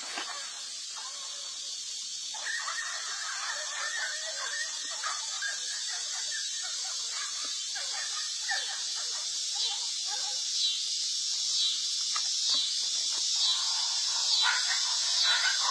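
Dogs fighting, with a dog giving high-pitched, broken squeals and yelps over a steady high hiss. The squealing grows louder near the end.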